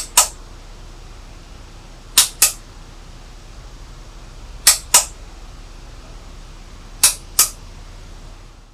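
Four pairs of sharp double clicks, the two clicks in each pair about a quarter second apart and the pairs about two and a half seconds apart.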